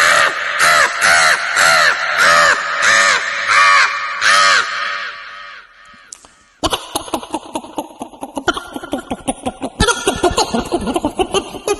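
A human mimic imitating a crow: a run of about nine loud caws, roughly two a second, that fades out about halfway through. About two-thirds of the way in, a different rapid chattering sound starts.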